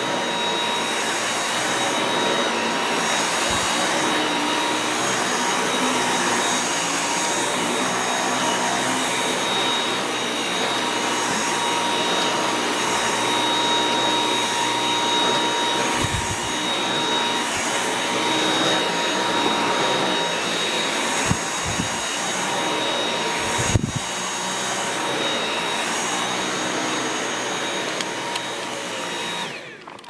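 Dyson V8 cordless stick vacuum running on standard suction while vacuuming carpet: a steady high whine, with a few sharp knocks in the later part. It cuts off just before the end as it is switched off.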